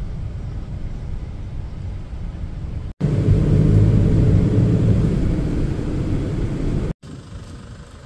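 Steady low rumble of engine and road noise heard inside a moving van's cabin. About three seconds in, a cut brings a louder stretch of the same rumble. Near the end it drops to a much quieter background.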